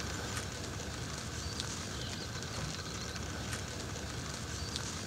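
A faint, steady noise with a low rumble and a few soft crackles.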